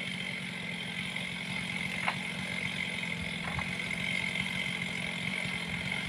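Engine idling steadily, a constant low hum with a high steady whine above it; two faint clicks about two and three and a half seconds in.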